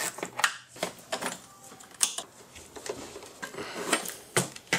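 Irregular sharp plastic clicks and knocks from hands working on the intake air box: unplugging a connector and unclipping and shifting the plastic housing.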